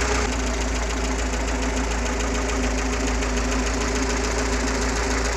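UMZ-421 inline four-cylinder petrol engine in a GAZ-69 idling steadily, with a rapid, even beat. The engine has just had a major overhaul.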